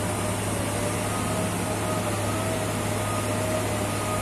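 Steady drone of construction machinery: a constant low engine hum with a faint wavering whine above it.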